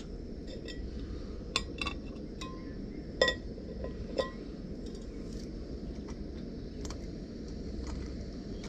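Stanley metal cook pot clinking as it is handled on the gas stove: a handful of sharp metallic knocks with short ringing, the loudest about three seconds in, then a few fainter ticks, over a steady low rumble.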